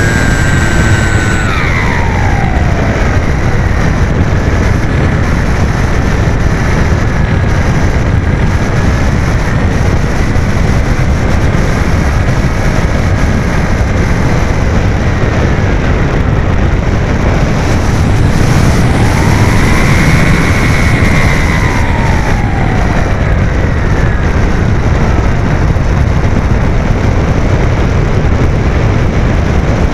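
Wind rushing loudly over the onboard keychain camera of an electric RC plane in flight, with the motor's whine heard faintly through it. The whine glides down in pitch just after the start, holds fairly steady, then rises and falls again about two-thirds of the way through as the throttle changes.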